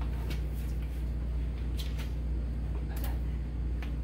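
Handheld electric polisher with a foam pad running steadily, a low drone as it works cutting compound over a painted panel, with a few faint ticks.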